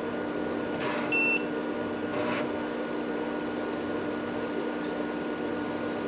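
IBM PC XT booting: one short beep from the PC speaker about a second in, the sign that the power-on self-test passed. It comes between two brief rasping drive seeks, over the steady hum of the machine's fan and spinning hard drive.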